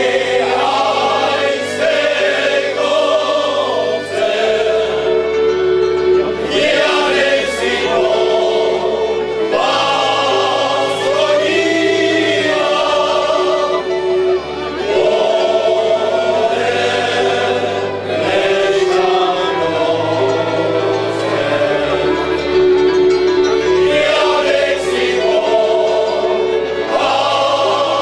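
Men's folk choir singing a folk song in harmony, accompanied by a fiddle and a double bass whose long low notes change every couple of seconds.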